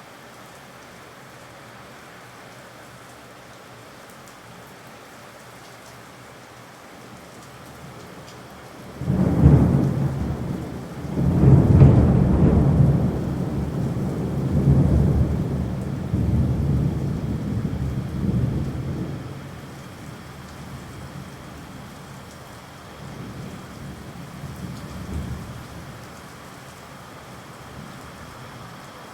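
Steady rain with a loud peal of thunder. The thunder breaks about nine seconds in, rolls on deep in waves for some ten seconds, and a fainter rumble follows later.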